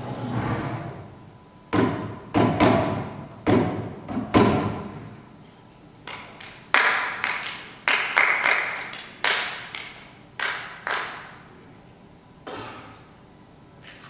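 A series of irregular hand-struck thumps and slaps on stage: about six heavy, dull thumps in the first few seconds, then sharper slaps spread over the middle, and one last hit near the end, each ringing out briefly in the hall.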